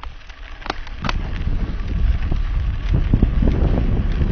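Wind buffeting an action camera's microphone on a moving mountain bike, with the low rumble of tyres on the dirt trail building from about a second in. A few sharp clicks come in the first second.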